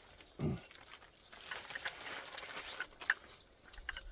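Rustling and scattered light clicks as tarp-kit packaging and stake bags are handled, with a short low falling sound about half a second in.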